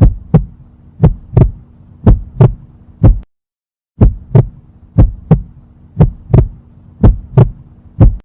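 Heartbeat sound effect: paired lub-dub thumps about once a second over a faint steady hum. It breaks off briefly about three seconds in, then starts again.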